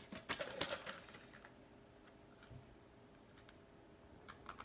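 Faint crinkling and clicking of plastic tackle packaging being handled, busiest in the first second and a half, with a few more clicks near the end.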